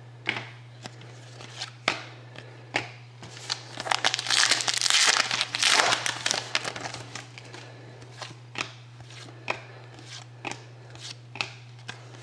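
Plastic trading-card pack wrapper crinkling and tearing open, loudest in the middle. Light clicks of cards being handled come before and after, over a steady low hum.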